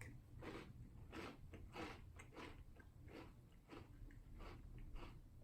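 A person chewing a mouthful of crunchy cereal in milk, faint, with a soft crunch roughly every two-thirds of a second.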